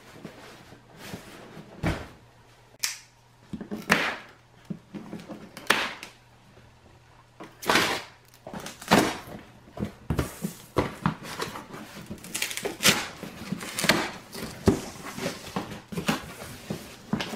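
A corrugated cardboard ration case being opened by hand: the plastic strapping pulled off and the flaps pried open. Separate sharp cardboard scrapes and knocks, coming thicker and faster in the second half as the flaps are worked open.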